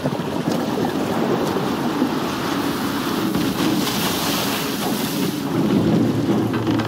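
Rough sea water churning, with waves crashing and wind, as a steady roar.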